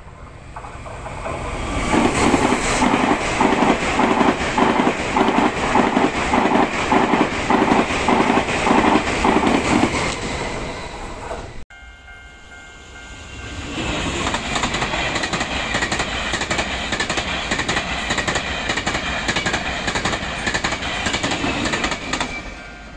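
Two Taiwan Railway trains passing at speed, one after the other, each with a steady run of rhythmic wheel clatter over the rail joints as it goes by. The first pass builds up, runs and fades, then is cut off abruptly about halfway through. A second pass rises and runs until it fades near the end.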